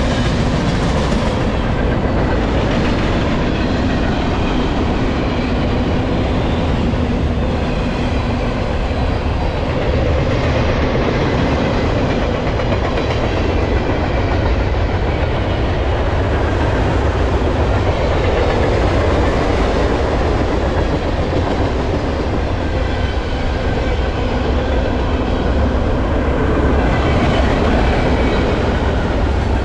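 Freight cars of a Norfolk Southern manifest train rolling past at speed, a steady noise of steel wheels on rail.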